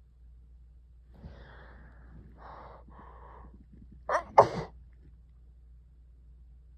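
A person with a head cold sneezing. Three gasping breaths in over about two seconds, then a loud sneeze in two quick bursts about four seconds in.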